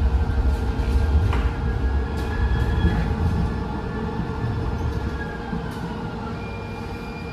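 Interior of a Siemens LRV4 light rail car in motion: a low rumble of steel wheels on the rails with a steady electric hum. It grows quieter through the second half, with a faint falling whine, as the car slows.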